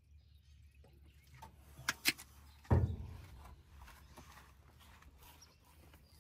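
Two sharp clicks about two seconds in, then a single heavy thump with a low, fading tail, amid faint scattered movement noises around a parked pickup truck.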